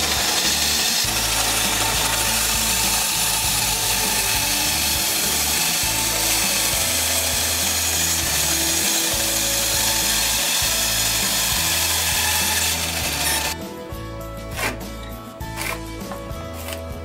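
Benchtop band saw running and cutting through a wooden board, a steady loud noise that stops about three quarters of the way through. After it stops, a few light knocks of wood being handled are heard over background music with a stepping bass line.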